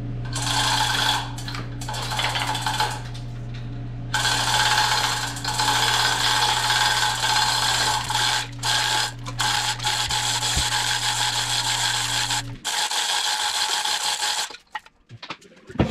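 An electric-motor machine runs steadily with a low hum under a loud hiss. The hum cuts off about 12.5 seconds in, and the hiss dies away a couple of seconds later.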